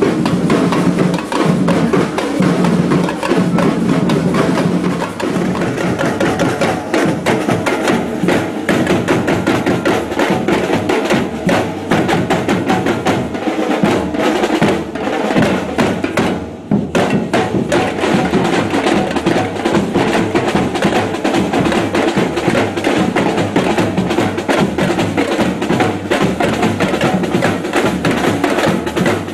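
Batucada samba percussion band playing a fast, dense drum rhythm on large bass drums, snare drums and hand percussion, with a brief break about halfway through before the drums come back in.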